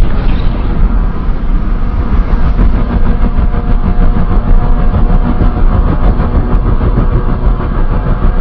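Custom kaiju sound effect: a loud, steady, deep rumble that holds without a break.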